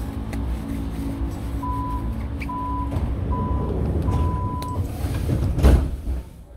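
Metro train door-closing warning: four electronic beeps at one pitch, the last held longer, then the sliding doors shut with a loud thump near the end. Under it runs the steady low hum of the stationary train.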